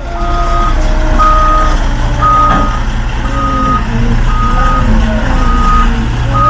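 Heavy truck's reversing alarm beeping about once a second over its diesel engine running.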